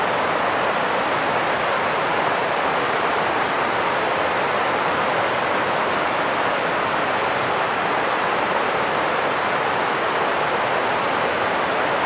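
Rain-swollen creek rushing down a rocky cascade: a loud, steady rush of whitewater.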